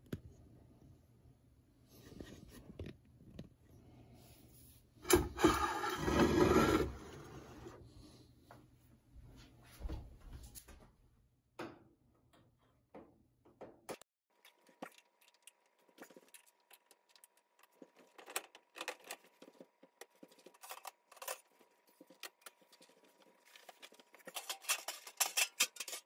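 Metal scraping and clattering as a Samsung gas range is taken apart: the oven racks are pulled out and the bottom storage drawer is removed. A loud scrape of about two seconds comes about five seconds in, and a quick run of rattling clatters comes near the end.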